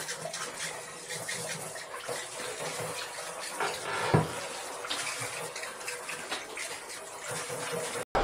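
Water from a handheld shower head spraying into a plastic container, rinsing it out, with splashing and small knocks on the plastic. One sharper knock about four seconds in, and the sound cuts off abruptly just before the end.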